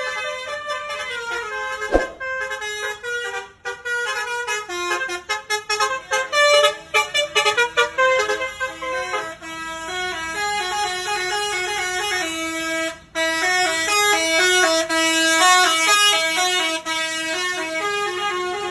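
Telolet Basuri bus horn playing a tune of quick stepped notes, with a fast run of short notes in the middle and longer held notes toward the end. A sharp click about two seconds in.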